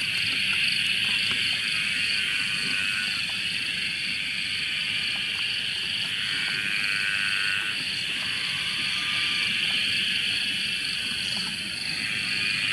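Frogs calling in a dense, steady night chorus, with a thin, high steady tone above it. A lower, separate call stands out for a couple of seconds around the middle.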